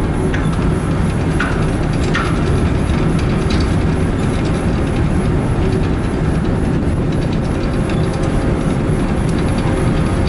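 Steady low rumble of the car ferry's engines and onboard machinery, heard from the open deck, with a few short high squeaks in the first couple of seconds.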